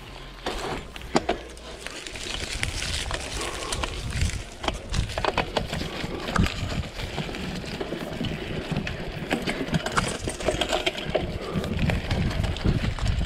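Mountain bike being ridden along a dirt trail: tyre noise with frequent rattles and clicks from the bike, and wind rumbling on the camera microphone, heavier near the end.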